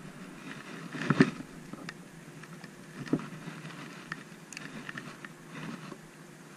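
Close handling noise from a spinning rod and reel: scattered clicks and knocks, the loudest about a second in and another about three seconds in, over a light rustle of gloves and clothing.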